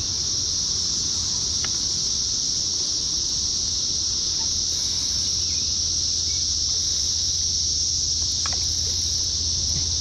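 A steady, high-pitched, unbroken buzzing chorus of cicadas, over a low steady hum.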